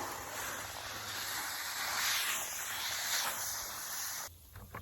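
Water spraying from a garden hose, a steady hiss that cuts off suddenly near the end.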